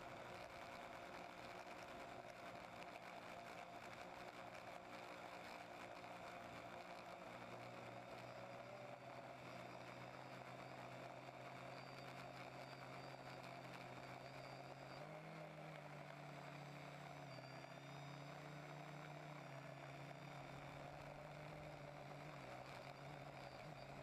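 TBS Discovery quadcopter's electric motors and propellers whirring faintly and steadily, their pitch stepping up and down several times in flight.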